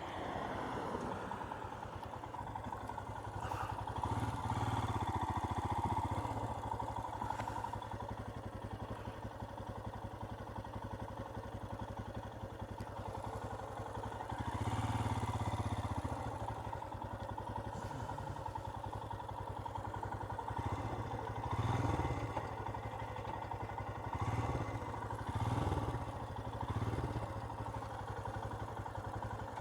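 Royal Enfield Himalayan's single-cylinder engine running while the bike is ridden, its note swelling and easing several times as the throttle is opened and closed.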